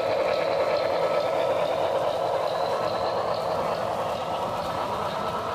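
Broadway Limited Imports model Norfolk & Western Class J steam locomotive and its passenger cars running past on the layout, a steady rushing sound with no breaks.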